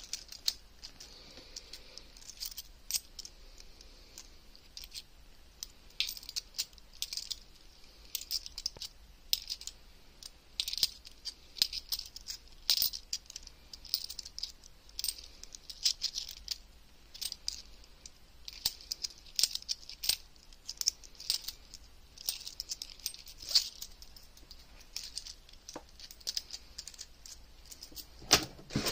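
A stack of cupro-nickel 50p coins being thumbed through by hand, the coins clicking and chinking against each other in irregular flurries.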